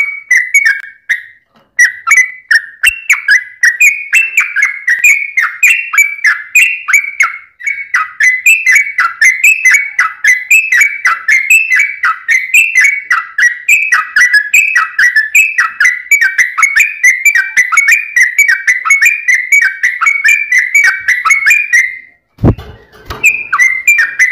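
Yellow-vented bulbul (trucukan) singing a fast, dense run of short whistled notes, several a second, with almost no pauses. About 22 seconds in the song breaks briefly for a low thump, then picks up again.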